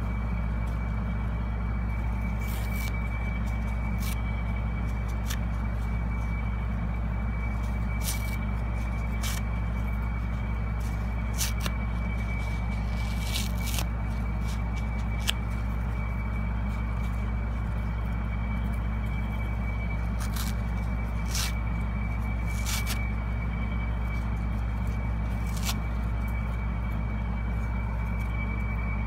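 Soap-soaked kitchen sponges, yellow foam with green scouring pad, squeezed and crumpled by hand: scattered short wet crackles and squishes at irregular moments. Under them runs a steady low hum, the loudest thing throughout, with a faint steady high whine.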